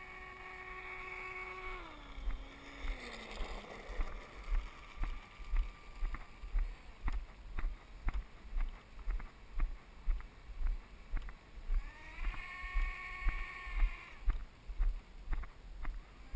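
A small electric motor's whine holds steady, then winds down about two seconds in. After that come steady low thuds about twice a second, like footsteps carrying the camera, and a second brief motor whine rises and holds near the end.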